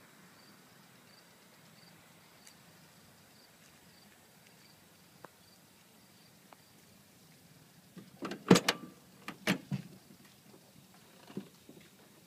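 Tailgate of a 1985 Pontiac Parisienne Safari station wagon being unlatched and opened: a cluster of loud metal clunks and clicks about eight to ten seconds in, with one smaller knock near the end. Before that there is only faint outdoor background.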